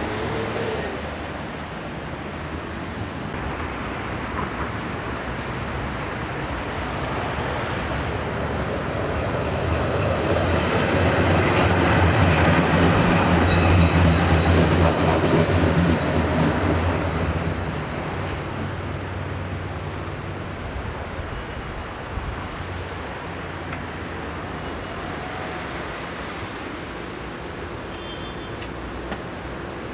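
Articulated electric tram approaching and running past on its rails. It grows to its loudest about halfway through, with a steady low hum and a faint high whine as it passes, then fades away.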